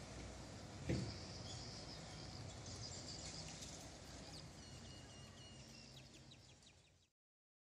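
Faint street ambience: a low steady rumble with small birds chirping, and a brief thump about a second in. The sound fades out to silence near the end.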